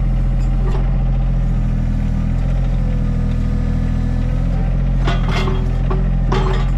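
Mini excavator's diesel engine running steadily under load while the machine drags a pipe-and-chain grading attachment, with two short metallic rattles about five and six and a half seconds in.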